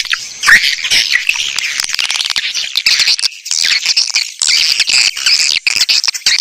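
Swiftlet lure recording: a dense, continuous chatter of many swiftlets twittering and chirping in rapid, high-pitched calls. It is the kind of call track played through speakers at a swiftlet house to draw the birds in to nest.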